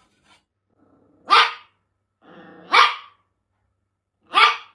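A dog barking three times, loud, short barks about a second and a half apart.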